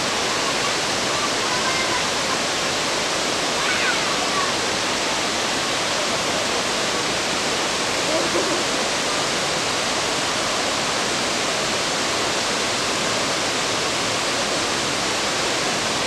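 Steady, even rush of a shallow rocky river flowing fast over stones, with the spray of the waterfall just upstream.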